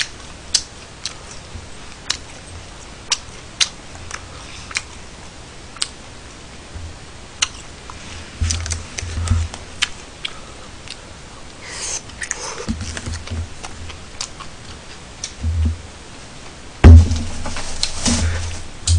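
Eating with chopsticks from plastic takeout containers: scattered sharp clicks of chopsticks against the plastic and the sounds of handling the containers. A loud thump comes near the end.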